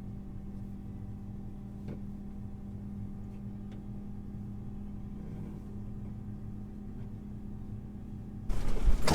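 Steady low engine hum with a few even tones, as heard from inside a vehicle cab. About eight and a half seconds in it cuts abruptly to much louder, rougher outdoor noise.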